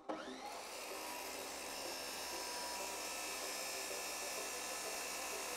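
Abrasive chop saw running steadily while a metal rod, spun in a drill, is ground against the side of its wheel to sharpen it to a point: a steady whir with a grinding hiss.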